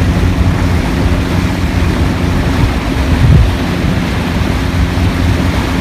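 Boat engine running steadily with a low drone, mixed with wind and water noise, and a short low surge about three seconds in.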